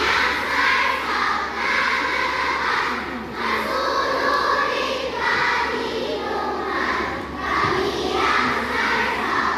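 A large group of young girls singing and chanting a scout yell song in unison, in short rhythmic phrases.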